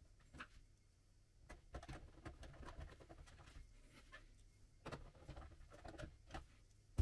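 Faint, scattered clicks and taps of hands and a screwdriver working on the Amiga 1200's plastic case as it is screwed shut.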